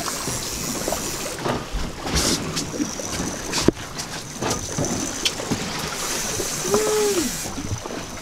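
Wind and choppy sea water around a fishing boat at the stern, with scattered knocks and one sharp knock about halfway through, and a short tone that rises and falls about seven seconds in.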